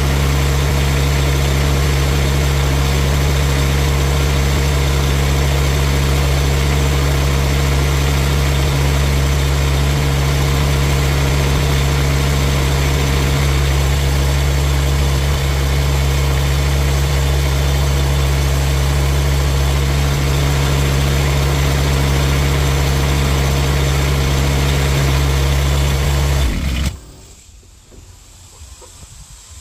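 Mini excavator engine idling steadily at an even speed, then shut off about 27 seconds in. It stops abruptly, at the end of a ten-minute test run with its newly fitted 100 amp one-wire alternator.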